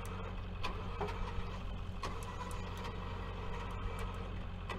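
Tow truck engine running steadily while its winch pulls a tipped mini excavator upright, with a few faint clicks over the hum.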